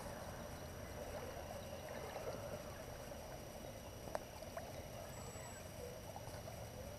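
Faint steady riverside ambience, a low wash of wind and water, with a faint click about four seconds in.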